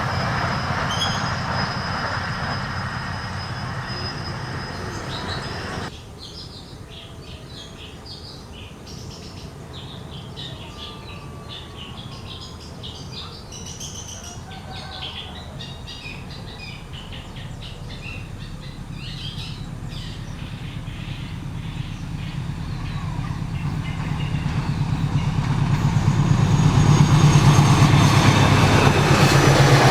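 A train passing close by, its rumble fading over the first few seconds; after an abrupt cut, birds chirp over a quiet background. About two-thirds of the way through, another train approaches, its low rumble and wheel noise growing steadily louder until it is passing near the end.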